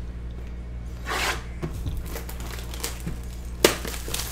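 Clear plastic shrink-wrap being torn and crinkled off a trading-card box, with a rustling tear about a second in and a sharp crack near the end.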